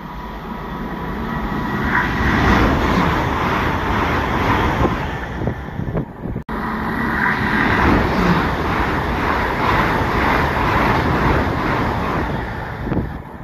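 A GWR Class 800 Intercity Express train running past on the nearest track: a loud, steady rush of wheels on rail and air that builds over the first couple of seconds. A brief drop-out comes about halfway, and the sound cuts off abruptly at the end.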